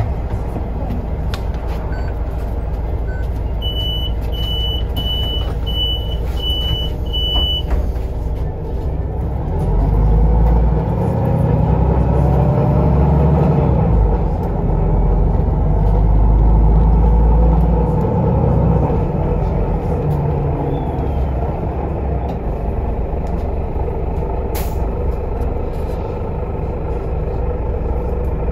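Solaris Urbino 18 articulated bus heard from inside the cabin: the engine runs steadily while a high electronic beeper sounds six times, evenly spaced, as the doors close. Then the engine gets louder as the bus pulls away, eases for a moment midway, and settles back to a steady run.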